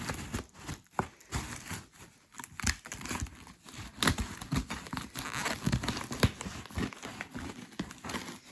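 Cardboard box being opened and pulled apart by hand: irregular crinkling and rustling of cardboard and packing, with scattered sharp knocks and scrapes.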